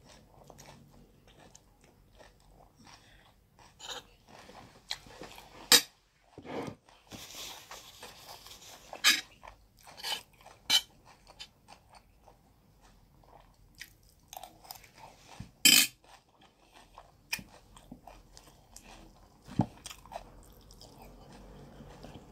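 Close-miked chewing and crunching of roasted chicken and jollof rice, with scattered sharp clicks as a fork works at the food; the loudest clicks come about six, nine, eleven and sixteen seconds in.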